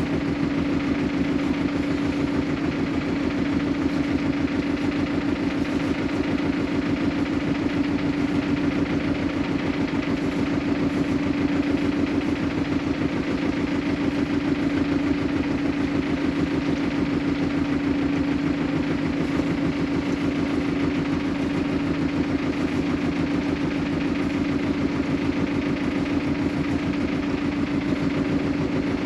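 Fishing boat's engine running steadily at low revs: an even drone with a strong steady hum and a rapid low pulse, as the boat moves slowly while a longline is set.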